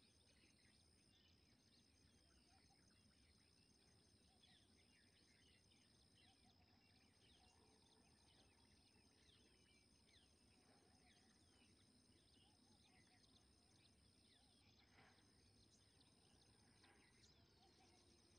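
Near silence of open countryside: many faint, short bird chirps scattered throughout, over a faint steady high-pitched whine.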